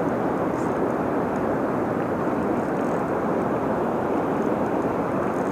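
Steady rushing of river current, an even, unbroken wash of water noise.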